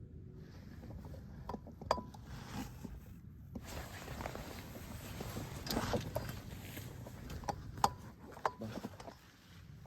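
Light rustling with scattered sharp crackles, as of dry leaves and small twigs shifting and snapping, over a low steady outdoor hiss.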